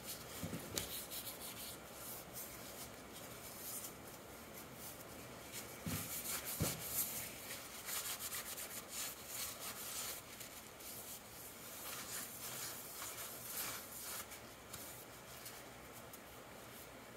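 Faint rubbing and scraping of hands working on axle parts, with scattered light clicks and two soft knocks about six seconds in.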